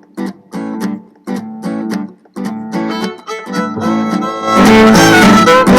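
Intro of a children's dance song: short strummed guitar chords on a steady beat of about two a second, building, then the full band comes in louder about four and a half seconds in.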